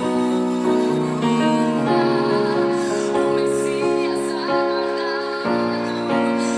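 Electronic keyboard playing a slow praise-and-worship tune, with held chords changing every second or so under a wavering melody line.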